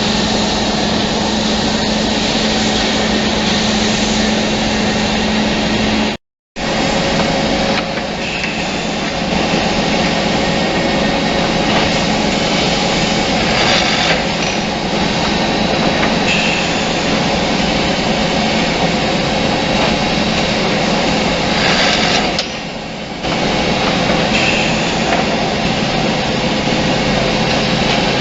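Automatic double-end wood cutting and drilling machine running, a steady motor hum with a whine. The sound cuts out for a moment about six seconds in, then carries on.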